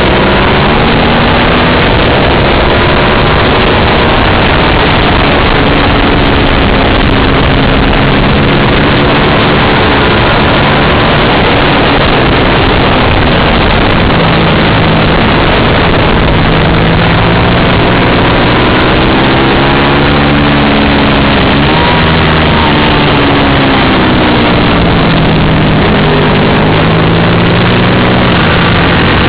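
Racing motorcycle engine under hard riding on track, its revs rising and falling again and again, heard through heavy wind rush on an onboard camera microphone.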